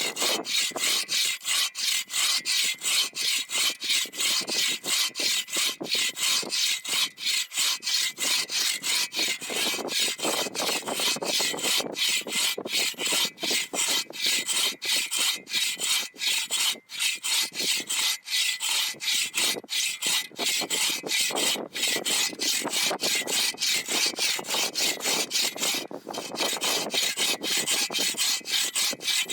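Hand saw cutting through wood in quick, even back-and-forth strokes, about three a second, with a brief break near the end.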